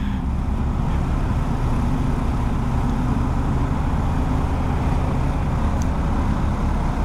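BMW R1250GS boxer-twin engine running steadily at low road speed, mixed with the noise of the surrounding scooter and truck traffic.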